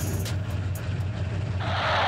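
Truck engine sound effect running with a low, steady rumble; a hiss joins it about one and a half seconds in.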